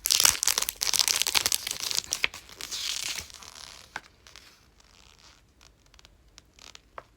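A small packaging wrapper being torn open and crinkled by hand, with loud crackling for about three seconds, then quieter rustling and a few small clicks.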